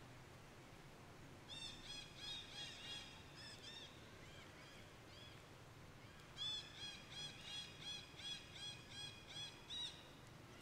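A bird calling: two runs of rapid, repeated high arching notes, about four a second, over faint steady background noise.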